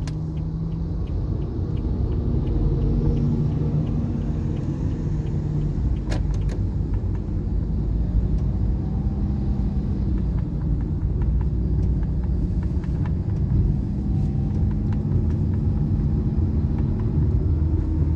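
Car driving, heard from inside the cabin: a steady rumble of engine and road noise, with the engine note rising and falling as the speed changes. A sharp click about six seconds in.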